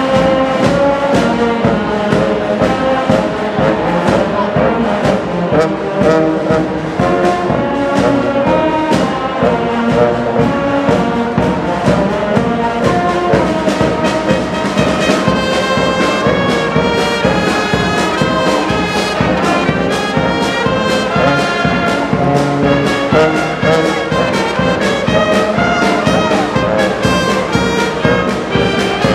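Background music led by brass instruments over a steady beat; about halfway through, a higher, busier line of notes comes in.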